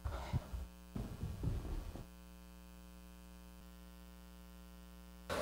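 Steady electrical mains hum on the recording. In the first two seconds a few soft, irregular footsteps sound on the stage floor.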